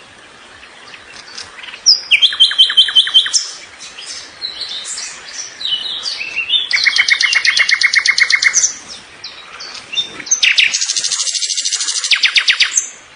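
A songbird singing loud, rapid trills of quickly repeated notes, about ten a second. The trills come in three runs of one to two seconds each, with softer, varied chirps between them.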